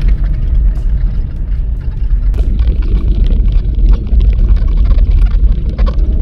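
A vehicle driving on a gravel road, heard from inside the cab: a steady low rumble of tyres and engine, with scattered small ticks of stones.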